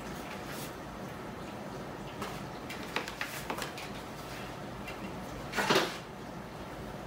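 A toco toucan moving about on top of wooden kitchen cabinets: a few light clicks and knocks, then one louder clatter about five and a half seconds in, over a steady room hum.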